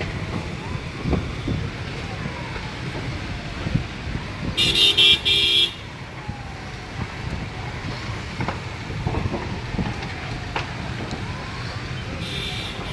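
A vehicle horn honking in a quick string of short blasts about five seconds in, and again more faintly near the end, over a steady hum of road traffic.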